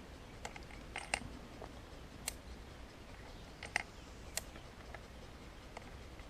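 Ruger New Super Blackhawk single-action revolver being loaded: a string of faint, sharp metallic clicks at irregular intervals as the cylinder is turned and .44 Magnum cartridges are seated in the chambers.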